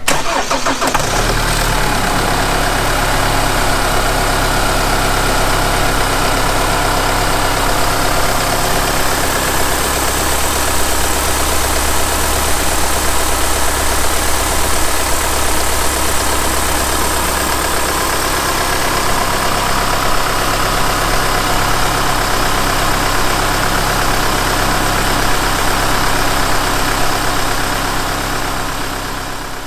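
Chevrolet Colorado ZR2's 2.8-litre Duramax four-cylinder turbodiesel idling steadily, heard close to the open engine bay.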